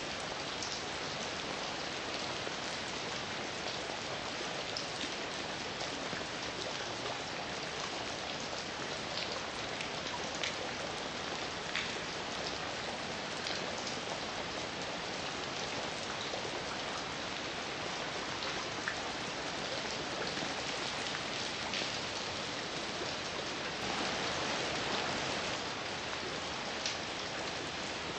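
Heavy rain falling steadily: a dense, even hiss with individual drops ticking sharply on a surface. It swells a little louder for a second or two near the end.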